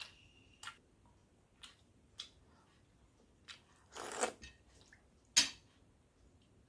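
A person eating close to the microphone: scattered short wet mouth clicks and two louder crunchy bites, about four and five and a half seconds in.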